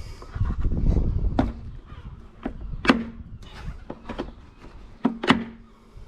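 Handling noise of a cool box being packed: a rustle and rumble early on, then a string of sharp knocks and clacks of hard items and the plastic box, three of them louder with a short ringing hum after.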